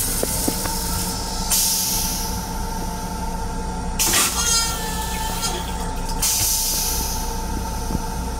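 Train lavatory toilet with a stainless-steel bowl going through its flush cycle: three rushes of water and air, about a second in, at about four seconds and near six seconds, with the bowl emptied. Under it runs the steady hum of the railcar.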